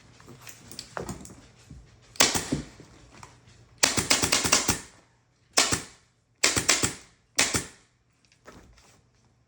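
Upholstery staple gun firing staples in quick bursts of sharp clicks: a cluster about two seconds in, a rapid run of shots around the middle, then three shorter bursts.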